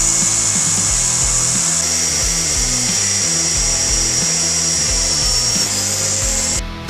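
A power tool working steel runs loudly: a high, noisy sound with a steady high whine through its middle part, cutting off sharply near the end, over rock background music.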